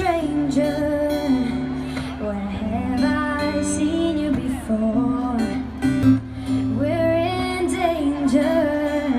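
Live music: a singer performing a song over strummed acoustic guitar.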